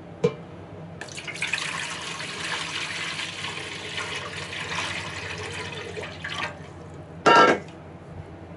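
Water running or bubbling, with a sharp click at the very start and a short, loud, ringing metallic clink about seven seconds in.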